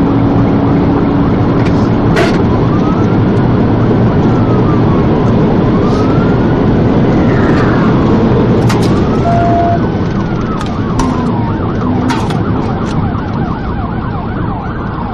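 Police car siren in a slow rising-and-falling wail, switching to a fast yelp about ten seconds in, over loud engine and road noise from a vehicle at speed.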